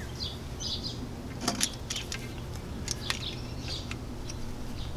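Small birds chirping faintly in the background over steady outdoor noise. A few sharp clicks come between about a second and a half and three seconds in, as plastic 1/4-inch drip tubing and a stake emitter are handled.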